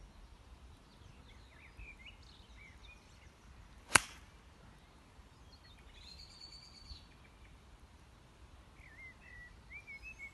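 A golf iron strikes the ball once, a single sharp crack about four seconds in. Birds chirp on and off before and after the shot.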